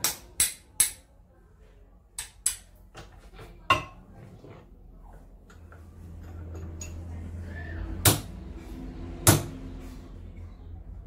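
Hammer blows on steel parts held in a bench vise: sharp metallic clinks, three in quick succession at the start, a few more spaced taps, and two harder strikes near the end.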